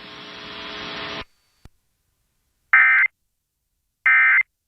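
Steady radio hiss that cuts off about a second in, a click, then two short buzzy bursts of EAS SAME digital data tones about a second and a half apart: the end-of-message code that closes the Emergency Alert System warning.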